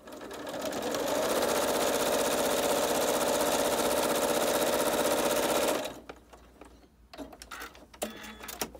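Janome Horizon 7700QCP sewing machine stitching a seam through layered fabric: it speeds up over the first second, runs steadily at speed, then stops about six seconds in. A few light clicks follow.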